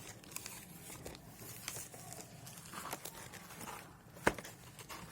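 Faint crinkling and rustling of paper- and plastic-wrapped firecracker packets being handled, with a sharp tap or click about four seconds in.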